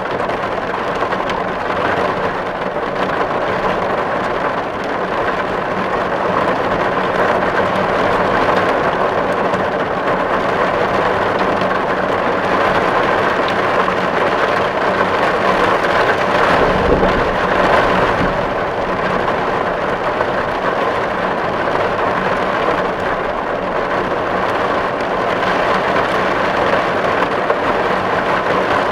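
Steady rain pattering on a tin roof, an even dense patter of drops on the metal. A brief low rumble swells a little past halfway.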